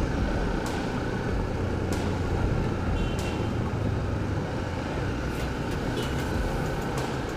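Motorcycle riding in city traffic: steady engine and road noise, with a few faint clicks.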